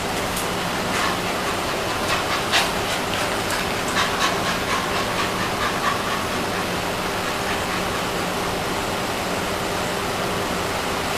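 Steady hiss with a low electrical hum underneath, broken by a few faint clicks in the first half and a faint thin whine for a couple of seconds near the middle.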